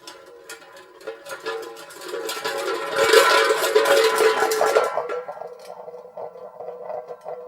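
Metal car hubcap spinning and wobbling on concrete: a rapid metallic rattle with ringing that speeds up and grows loud, then cuts off abruptly about five seconds in as the hubcap settles. A fainter ringing clatter follows.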